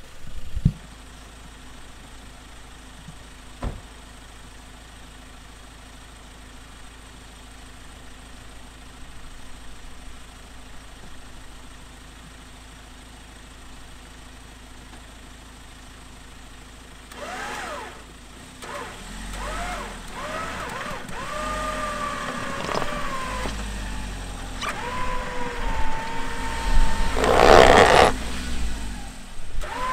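Ford Ranger's engine starting after a quiet stretch, then revving under load with a whine that rises and falls as the stuck truck tries to climb out of an icy ditch on traction boards, with a loud burst near the end.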